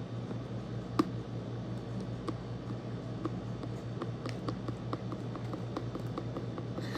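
Homemade slime being handled, squished and poked, giving a string of small irregular sticky clicks and pops, with one sharper click about a second in.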